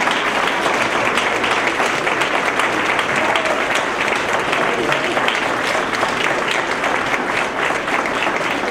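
Crowd applauding: many hands clapping densely and steadily, with voices mixed in.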